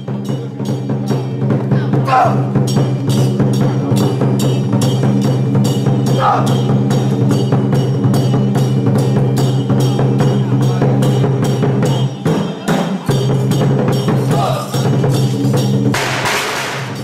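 Traditional Taiwanese drum-and-gong percussion (鑼鼓) accompanying a Song Jiang Zhen martial formation. It plays a rapid, steady beat over a continuous ringing tone, with a louder noisy crash near the end.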